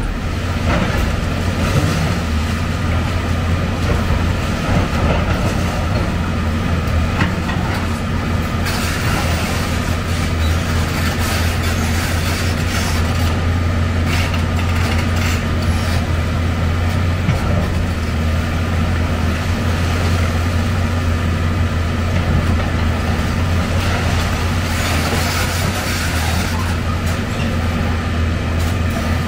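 Heavy excavator's diesel engine running steadily, with scattered clanks and knocks of demolition work.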